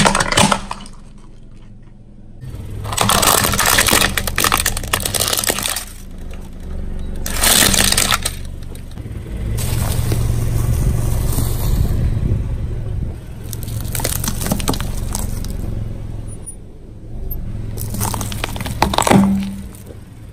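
Car tyre rolling slowly over brittle plastic and crunchy food and crushing it: several separate runs of cracking and crunching, each a few seconds long, with pieces snapping apart.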